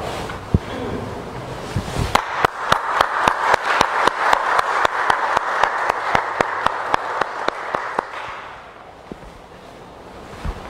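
A small congregation clapping for a few seconds, with single claps standing out; the applause fades out about two-thirds of the way through. A couple of knocks come before it.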